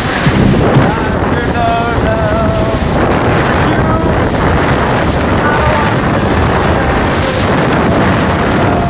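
Wind buffeting the microphone over the rush of seawater along the hull of a sailboat under sail, a loud, steady noise.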